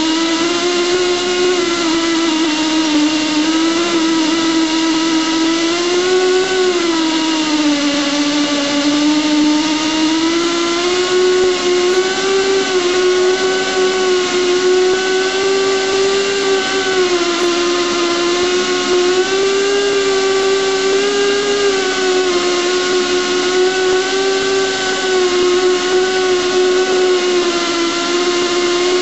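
Esco Prepzilla pipe end prep machine running steadily, its motor giving a loud whine as the cutter bevels a steel pipe end and peels off a curling chip. The pitch sags and recovers slowly a few times as the cutting load changes.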